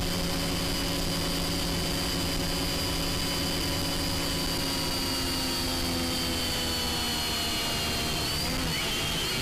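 SJ R/C X300-2C quadcopter's motors and propellers whining steadily in flight, the pitch sagging slightly and wavering near the end.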